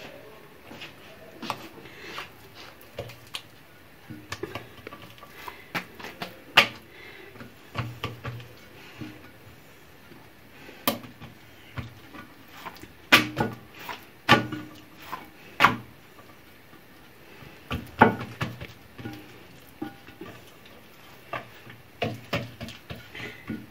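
Hands patting and pressing oiled msemen dough flat on a large glazed ceramic plate: irregular taps and knocks, some with a dull thud.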